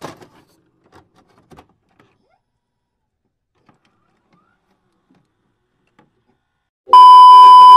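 A few faint scattered clicks, then near the end a very loud electronic beep: one steady, high held tone lasting about a second, a sound effect of a glitchy 'loading' intro animation.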